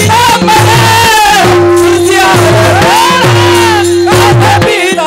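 Marathi devotional kirtan music: men singing a panchapadi in unison, their voices rising and falling, over small brass hand cymbals (tal) clashing in rhythm and a pakhawaj drum keeping the beat.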